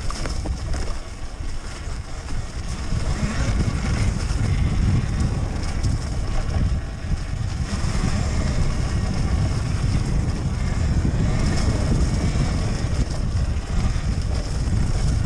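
Wind buffeting the microphone of a camera mounted on a moving Talaria Sting MX4 electric dirt bike on forest single track, a loud, unsteady low rumble that picks up about three seconds in; the electric bike itself is nearly silent.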